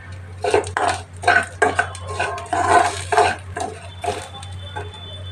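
A metal spoon stirring dry raw rice in a pan as it is dry-roasted: a run of irregular scraping strokes with the grains rustling against the pan, over a steady low hum.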